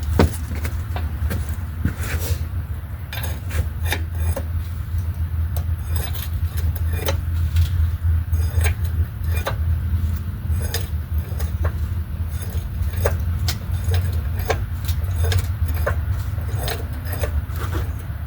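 Repeated light metal clinks and knocks as a transmission hanging from an engine hoist is shifted and rocked against the engine, over a steady low rumble.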